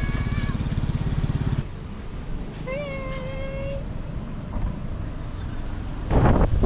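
Low rumble of a Suzuki Jimny's engine, dropping away about two seconds in, with two short cries from a small animal, each rising and then holding, like a meow or a whine. Near the end, loud wind buffeting the microphone.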